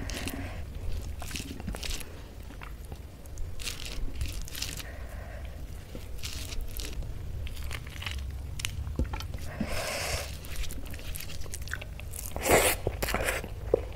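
Fingers mixing rice with baingan masala on a metal plate, giving soft squelching and small clicks. Near the end comes a big mouthful of the rice, eaten close to the microphone with wet chewing and smacking.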